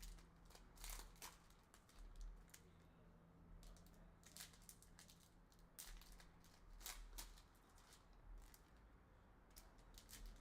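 Faint, irregular crinkling, scraping and light taps of trading-card packaging and foil packs being handled.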